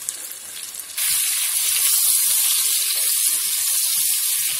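Chopped garlic sizzling in hot melted butter and oil in a frying pan as it is stirred with a silicone spatula. The sizzle jumps suddenly louder about a second in and then holds steady.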